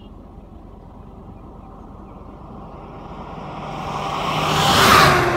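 A road vehicle passing close by: its tyre and engine noise swells steadily and peaks loudly near the end, then begins to fade.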